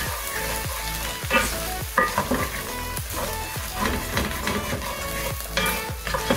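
Boiled tripe cubes sizzling as they fry in cooking oil, stirred in the pan, with a few sharp knocks of the utensil against the pan. Background music with a steady beat plays underneath.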